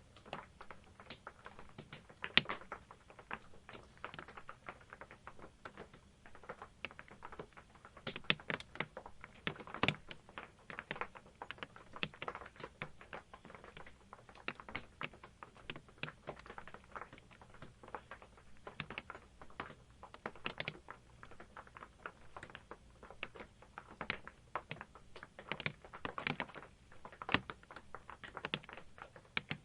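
Raindrops tapping on the roof of an RV heard from inside, scattered irregular ticks and taps with the occasional louder drop.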